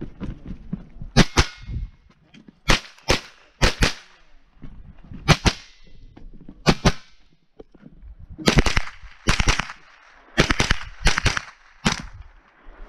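Ruger 10/22 semi-automatic .22 rifle fired rapidly, about twenty shots mostly in quick pairs, each pair a fraction of a second apart, with a second or so between pairs.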